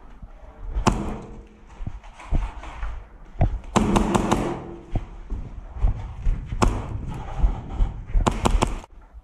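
An airsoft player's footsteps and scuffs on a debris-strewn concrete floor, with scattered knocks. Near the end comes a quick string of sharp cracks as a Hi-Capa gas blowback pistol fires several shots.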